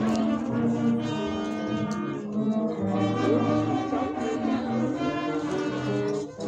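Several band instruments, brass among them, playing overlapping held notes at different pitches, with notes starting and stopping throughout.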